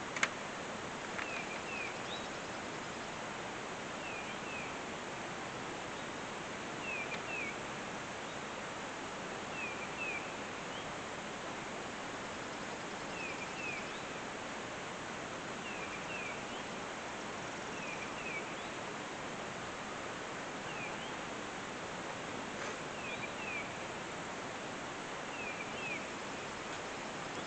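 Rural outdoor ambience: a steady even hiss, with a songbird repeating a short phrase of two quick falling notes every few seconds.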